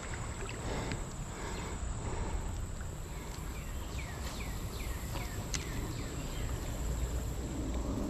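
Outdoor creek ambience: a steady wash of moving water and air. About halfway through, a bird sings a quick run of short falling notes.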